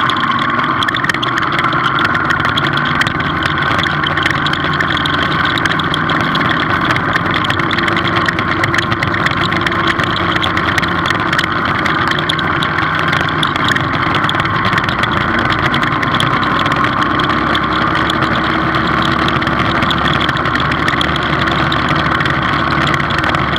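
Motorcycle engine running steadily at cruising speed, its pitch drifting only slightly, mixed with steady wind and road noise.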